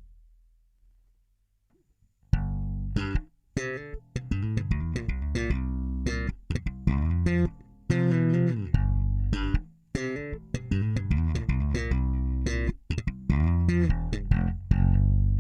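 Jazz-style electric bass with EMG noiseless pickups played through a Boss BE-5B bass multi-effects unit. After about two seconds of near silence, a run of plucked notes with sharp attacks and a few short breaks, ending on a held low note.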